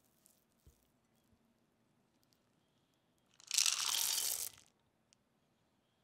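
Chocolate chips poured into a glass mixing bowl of cookie dough: a loud rustling patter lasting about a second, a little past the middle.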